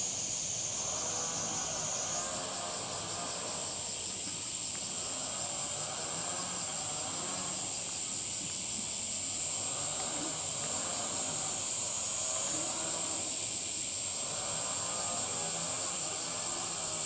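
Steady high-pitched insect buzzing that shifts slightly higher about two seconds in, with a lower sound swelling and fading about every two and a half seconds.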